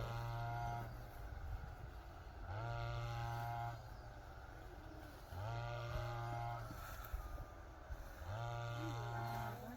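A motor rising to a steady hum for about a second and dropping back, four times at even intervals of about three seconds.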